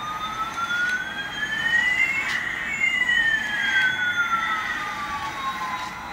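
Electronic sound effect from a battery-powered toy airliner's speaker: a single siren-like tone that glides slowly upward for about two and a half seconds, then slides back down. A few faint clicks are heard along with it.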